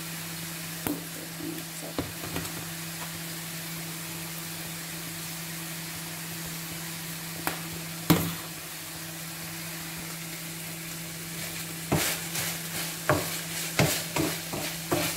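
Beef frying in a pot with a steady sizzling hiss over a low hum. A spoon knocks against the pot a few times, with one sharp clatter about eight seconds in and a run of stirring knocks and scrapes near the end.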